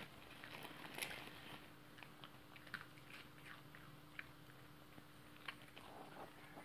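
Shih Tzu crunching and chewing a dog biscuit: faint, sharp crunches at an uneven pace, the loudest about a second in.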